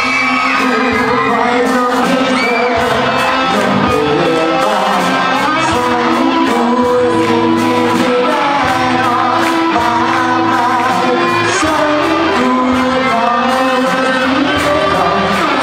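Live rock band playing: a male singer sings into a microphone over electric guitar, electric bass and a drum kit.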